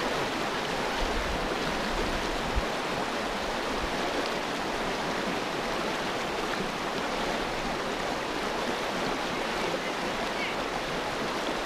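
Shallow river rapids running over rocks: a steady rush of water with no change in level.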